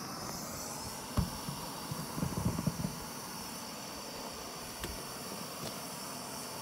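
MSR WindBurner canister stove's gas burner hissing steadily while heating a pot of water that is just starting to bubble. There is a sharp knock about a second in, a few low bumps a second later, and a small click near the end.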